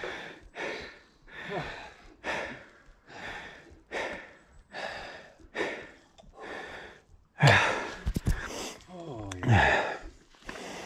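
A person breathing hard and fast after a steep climb on a mountain bike, a rhythmic run of heavy exhales a little more than one a second. About eight seconds in come a few sharp clicks and louder breaths, one of them voiced like a groan.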